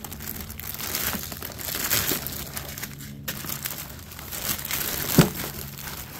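Clear plastic poly bag crinkling and rustling as it is handled and pulled open, with a sharp tap about five seconds in.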